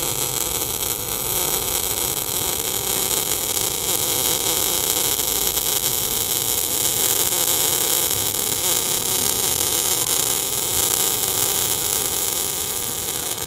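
MIG welding arc burning continuously with a dense crackling hiss, stopping right at the end. The current is set a little high for the plate thickness, so the weld is run fast.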